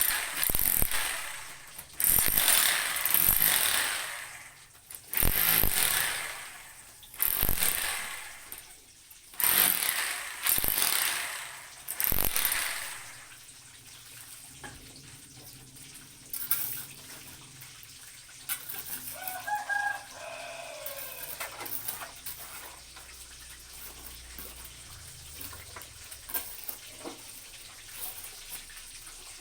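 INGCO RGH9028-2 rotary hammer breaking up a floor in chiseling mode, run in about seven short bursts of a second or so each, then stopping about 13 seconds in. Afterwards only faint scraping and ticking, with a rooster crowing once, faintly, about 20 seconds in.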